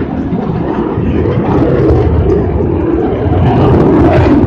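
F-16 fighter jet in flight: a loud, steady roar of its jet engine that swells a little near the end.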